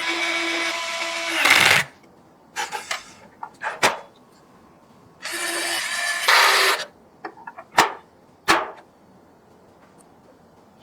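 Small electric screwdriver whirring in two short spells, each ending in a louder burst as the screw seats, with sharp clicks and taps of PC parts being handled in between.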